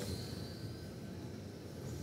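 Traxxas Slash radio-controlled race trucks running laps, their electric motors giving a high whine that dips and rises in pitch as they pass near the start, over a steady noisy rush.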